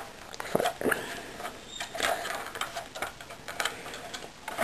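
Irregular clicks, taps and rattles of a JLS FN SCAR airsoft rifle being handled with its front end off and the battery compartment open.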